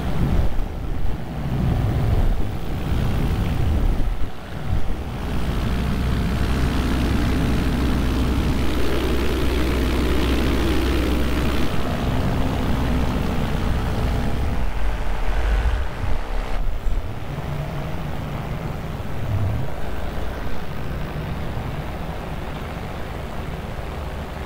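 Vittorazi Moster 185 two-stroke paramotor engine and propeller running steadily in flight, with air rushing past. The sound drops in level about two-thirds of the way through.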